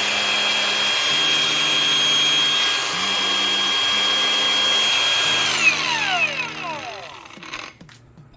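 INGCO 20V cordless angle grinder with a cutting disc fitted, running free at full speed with a steady high whine. About five and a half seconds in it is switched off and winds down, its pitch falling over about two seconds until it stops.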